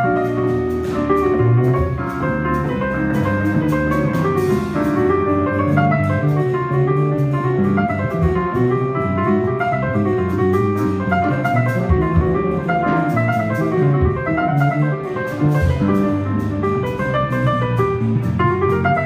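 Live jazz: piano with drum kit, a busy passage of many quick notes over steady drumming.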